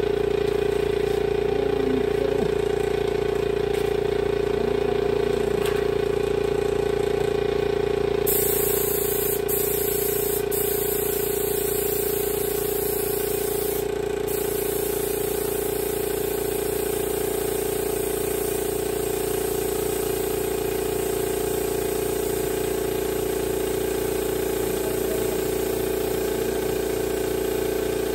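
Air compressor supplying a paint spray gun's hose, running steadily with an even drone. A steady high hiss joins about eight seconds in.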